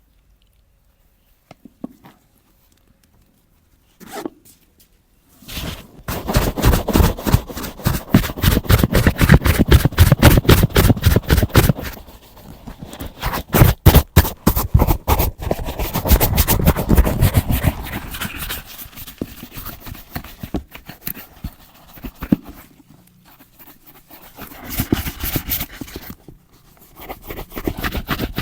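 Stiff brush scrubbing a leather boot in rapid back-and-forth strokes. It starts about six seconds in after a few light knocks, runs loud and dense for several seconds, then goes on in shorter bursts.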